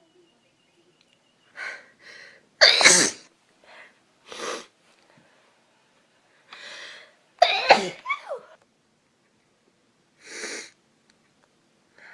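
A woman sneezing loudly twice, about three seconds in and again about eight seconds in, with shorter, quieter sounds between. She puts the sneezing down to a dust allergy, or maybe a cold.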